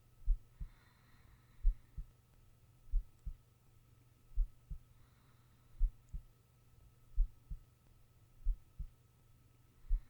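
A sleeping person's heartbeat: slow, steady double thumps (lub-dub), about 44 beats a minute. Faint breaths come twice, about four to five seconds apart, over a steady low hum.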